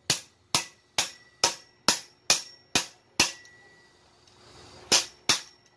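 Hammer blows on a stainless steel table leg tube, driving in its adjustable bullet-foot insert. There are eight sharp metallic strikes about two a second, a pause of about a second and a half, then two more, each with a brief ring.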